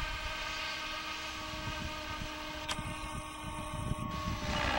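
Protos Max V2 radio-controlled helicopter flying overhead, its motor and rotor head giving a steady whine of several held tones. A single sharp click about two and a half seconds in.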